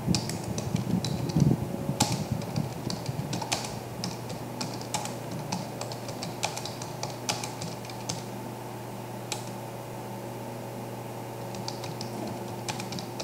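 Typing on a computer keyboard: irregular key clicks in short runs, thinning out a little past the middle, over a steady low hum.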